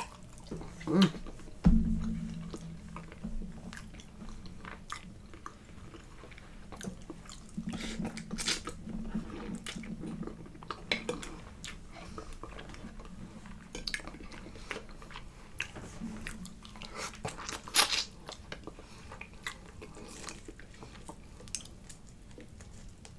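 Close-miked chewing of a person eating, with wet mouth clicks and smacks scattered all through. Twice a low closed-mouth hum joins in, and there are a few louder knocks.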